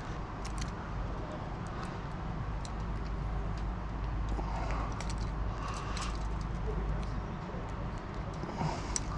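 Steady low rumble of distant traffic under scattered light metallic clicks and taps from hand work on a chain-link fence.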